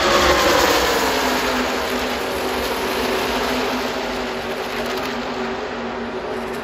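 NASCAR Truck Series race trucks' V8 engines at full racing speed passing in a pack. Their note drops in pitch as they go by, then settles into a steady drone that slowly fades as the field pulls away.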